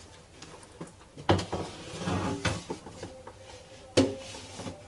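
Handling noise from work on a car door: a sharp knock about a second in, clattering and rubbing for about a second and a half after it, and another sharp knock near the end.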